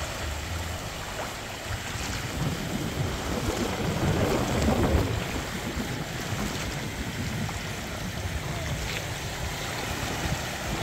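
Floodwater sloshing and splashing around the wheels of a lifted pickup truck driving through a flooded street, swelling loudest about four to five seconds in, with wind buffeting the microphone.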